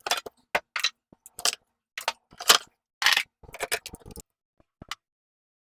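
Jars, bottles and containers knocking and clinking irregularly as food is taken out of a fridge, the clatter stopping about a second before the end.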